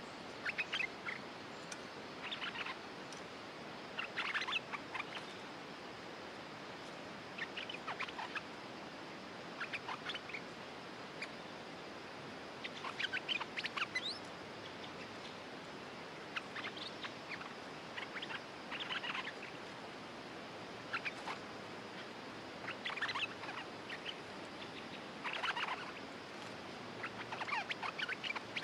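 Bulbuls calling in short bursts of sharp, chattering notes, one burst every couple of seconds. A caged decoy bulbul and a wild bulbul perched near it are answering each other.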